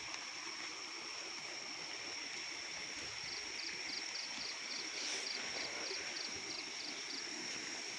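Night insects: a steady high-pitched drone over a soft hiss. From about three seconds in to about seven seconds, a regular chirp joins it at about four pulses a second.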